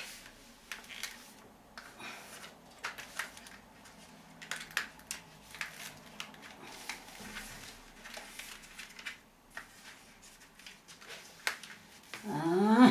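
Scattered light taps, knocks and scrapes of a framed picture being pressed and straightened against the wall it is taped to. Near the end comes a short rising vocal sound.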